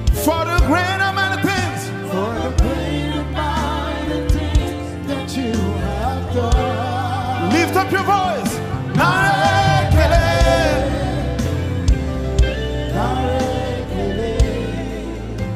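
Live gospel worship music: a band with drum kit and bass plays while the worship singers and the crowd sing along.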